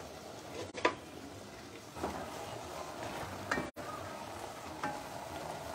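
A pot of noodles and vegetables simmering on a gas stove with a steady low hiss, and several short knocks and scrapes as the enamelled cast-iron pot and a wooden spoon are moved on the burner grate.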